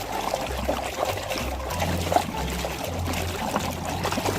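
Water trickling and pouring over a muddy plastic toy as it is washed, with small knocks and splashes from handling.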